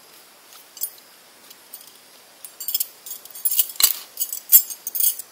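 Small hard, metallic-sounding objects clinking and rattling as they are handled: one sharp click a little under a second in, then a quick run of clinks and rattles from about two and a half seconds in until just before the end.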